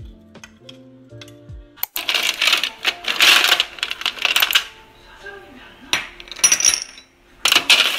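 Ice cubes clattering and clinking against a metal ice tray as a metal spoon scoops them out, loud in spells from about two seconds in and again near the end. Soft instrumental music plays at the start.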